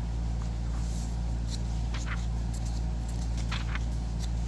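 Soft rustles of thin Bible paper as the concordance pages are turned, a few brief times, over a steady low hum that is the loudest sound.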